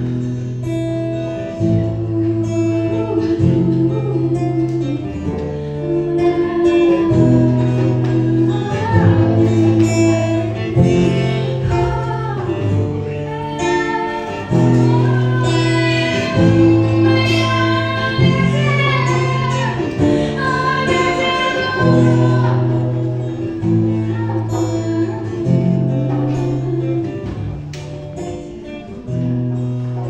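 A woman sings a worship song in Russian, accompanied by an acoustic guitar playing held chords that change every second or two, heard live through a microphone. The sung melody is clearest through the middle.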